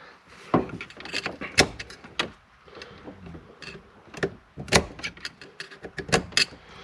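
Irregular sharp clicks and knocks of tools and steering-column parts being handled, with the loudest knocks about half a second, a second and a half, and nearly five seconds in.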